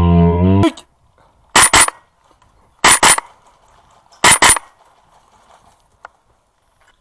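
Three shots from an airsoft rifle about 1.3 s apart, each a sharp double crack with a short high ring. At the start, a brief low pitched drone falls in pitch and stops.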